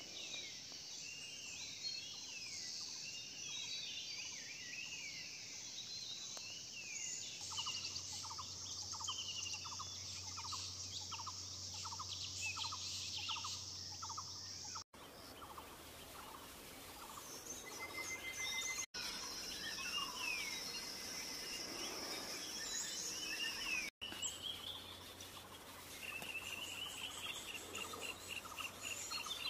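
Several wild birds calling and singing at once over a steady high buzz, with a lower call repeated about twice a second for several seconds in the middle. The sound breaks off for an instant three times.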